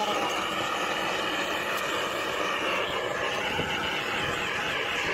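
Propane gas torch burning steadily with an even rushing noise, used to shrink the heat-shrink sleeves of a medium-voltage XLPE cable joint.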